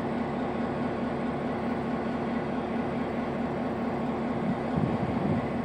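EMD GP9 diesel locomotive's 16-cylinder 567 two-stroke engine running with a steady drone, somewhat louder near the end.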